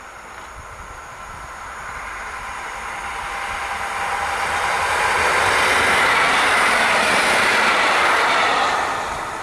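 An EN57-type electric multiple unit passing on the line. Its rolling noise on the rails grows steadily louder as it approaches, is loudest from about five to eight and a half seconds in as it goes by, then drops away near the end.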